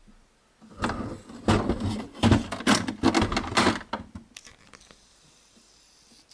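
A quick run of plastic clicks, knocks and rattles lasting about three seconds as the casing and front paper tray of an HP Photosmart C3180 printer are handled.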